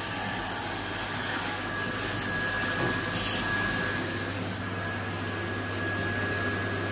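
A CNC mill drilling a deep hole in a billet aluminium runner with a long-series drill under flood coolant: steady machine hum and coolant spray, with a thin steady whine from about a second in. A few short hissy spurts of coolant and chips come through, the loudest about three seconds in.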